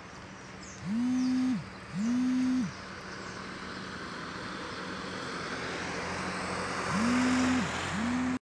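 A vehicle horn honking twice, then after a pause twice more, each honk a steady note of under a second, over a steady rushing background.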